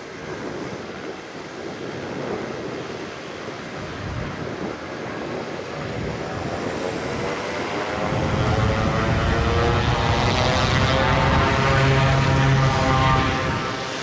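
Beechcraft B200C Super King Air's twin Pratt & Whitney PT6A-42 turboprops running with propellers turning. About eight seconds in the power comes up, and the sound grows louder into a steady propeller hum with a strong low drone, as the engines power up for the takeoff run.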